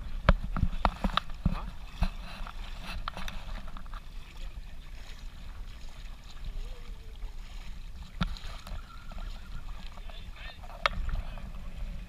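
Wading through shallow water: irregular splashes and knocks, densest in the first couple of seconds, over a low wind rumble on the microphone, with faint distant voices.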